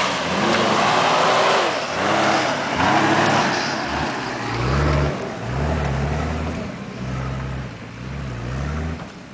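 Off-road SUV engine revving in repeated throttle bursts as it churns through mud, with a loud splashing rush of mud and water from the spinning tyres over the first few seconds. The engine pitch rises and falls with each burst and fades as the vehicle pulls away.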